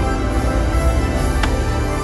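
Loud show music with a heavy low end, and one sharp pop about one and a half seconds in.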